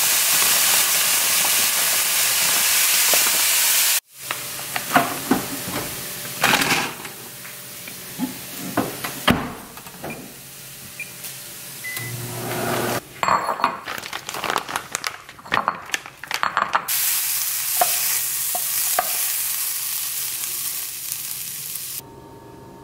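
Ground turkey sizzling in a frying pan, cut together with short bursts of kitchen clatter. About twelve seconds in, a microwave keypad beeps and the oven hums briefly as it starts, then the sizzling comes back until an abrupt cut to quieter room tone near the end.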